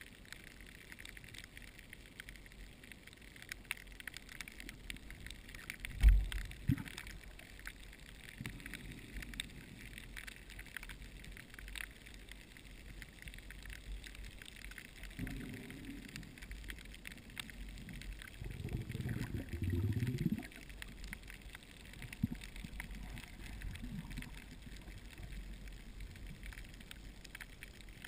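Underwater sound heard through a camera housing over a reef in surge: a constant faint crackle of fine clicks. A sharp low thump comes about six seconds in, and low rushing swells of moving water come several times, the longest near two-thirds of the way through.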